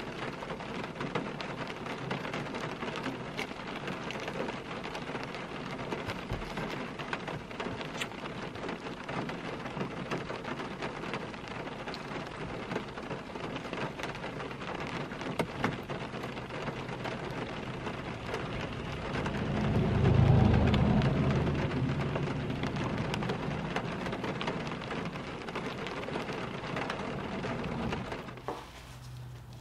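Steady rain pattering on a car's roof and windows, heard from inside the car. About two-thirds of the way through, a low rumble of thunder swells and fades over several seconds.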